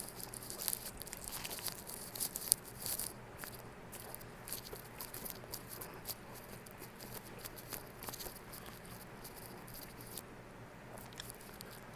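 Faint, scattered crackles and clicks of a paper food wrapper being handled, thickest in the first few seconds and sparser after.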